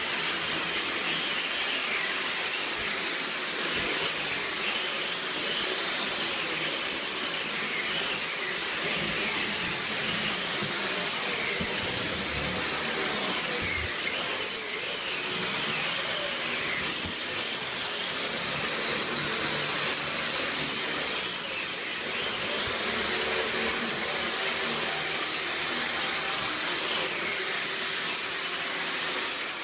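Handheld grinder with a vacuum dust shroud, grinding steadily and without a break on a concrete floor over a high, even whine.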